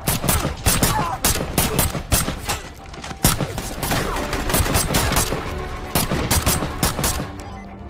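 Rapid automatic rifle fire, many shots in quick bursts overlapping one another, thinning out near the end.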